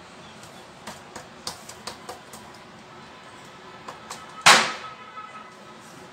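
Hands pressing sticky date paste on a stiff plastic sheet, the plastic giving a few small crackles, then one loud sharp knock a bit past halfway.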